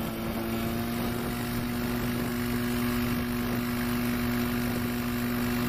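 Light aircraft's propeller engine running at a steady speed, an even drone with no change in pitch.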